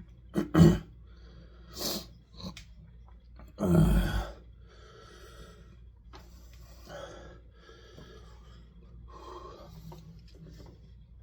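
A person breathing hard through the mouth from the burn of an extremely hot pepper: three loud, sharp exhales in the first four seconds, then quieter, heavy breathing.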